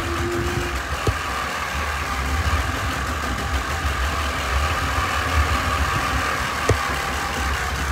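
Tractor engine running steadily with a low rumble. A brief squeak sounds at the start, and two sharp knocks come about a second in and near the end.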